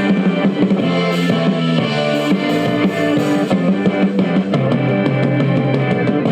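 Rock music with a drum kit and guitar, playing steadily at a loud level.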